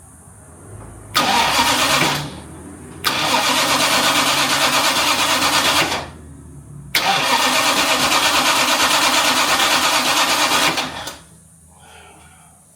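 Jaguar MkII's XK straight-six engine cranked over on the starter motor in three bursts, a short one then two of a few seconds each, with an even rapid chugging rhythm but never catching. It is not firing at all; the feed wire to the ignition coil is found to have come off.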